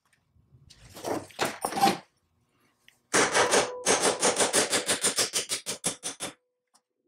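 Rapid metal-on-metal strokes, about six a second, with a ringing note, as a steel pin is worked in the housing of an antique cast-iron belt lacer. They follow a few short scrapes about a second in.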